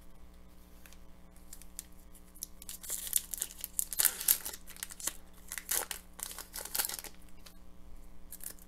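A foil hockey card pack (2013-14 Upper Deck Series 1) being torn open and crinkled by hand, in several irregular bursts of tearing and crackling. The loudest bursts come about three to four and a half seconds in, with more near seven seconds.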